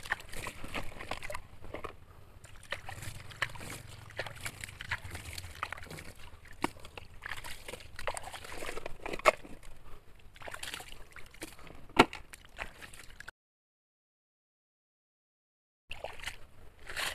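Shallow stream water sloshing and splashing as plastic toy dump trucks are rinsed, with scattered clicks of pebbles and plastic. A sharp knock comes about twelve seconds in, and the sound then drops out completely for about two and a half seconds.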